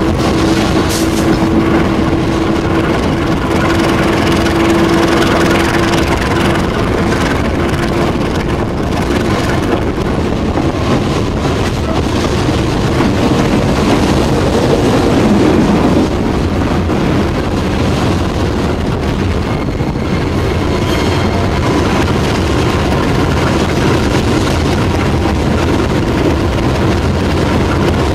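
Passenger train carriage rolling along the track, a steady loud clatter and rush of running noise, with a faint humming tone over the first several seconds.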